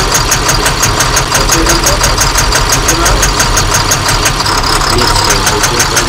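Cummins ISBe 5.9-litre six-cylinder common-rail diesel idling at about 700 rpm, with a sharp, regular knock of about six a second. This is the abnormal sound that comes with white exhaust smoke, traced to a faulty number 6 injector.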